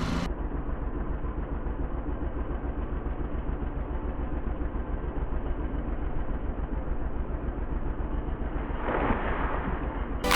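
An engine idling with a steady, even low throb; about nine seconds in a brief louder rush of noise rises over it.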